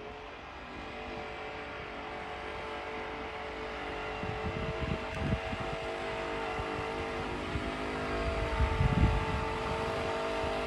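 ATV engine running at a steady speed while plowing snow, its note growing gradually louder as it approaches. A few low rumbling thumps come in about halfway and again near the end.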